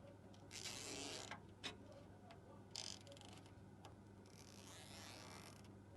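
Faint rustling and a few clicks of thick power cables being pressed and routed into place inside a PC case, over a low steady hum.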